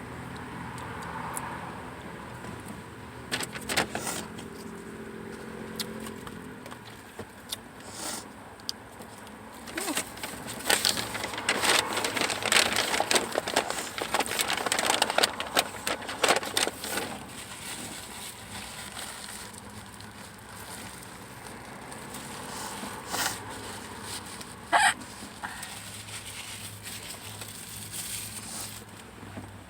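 Eating in a car: chewing and the crackle of a paper food wrapper. The clicks are scattered and grow dense about ten to seventeen seconds in, over a steady low hum inside the car.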